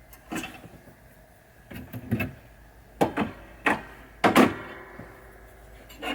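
A series of short knocks and scrapes, about six of them spaced irregularly, from handling tools and parts while working on the fuse wiring inside a pinball machine.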